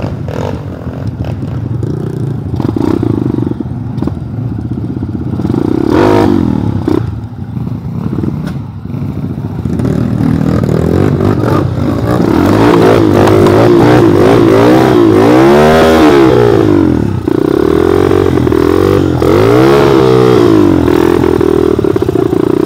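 Trail motorcycle engine working over rough, rocky ground, with knocks and rattles from the bike. About halfway through it gets louder, revving up and down several times in quick rises and falls of pitch.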